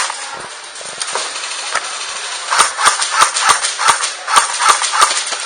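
Airsoft guns firing single shots: a few scattered shots in the first two seconds, then a quick string of about nine shots, roughly three a second, that stops shortly before the end.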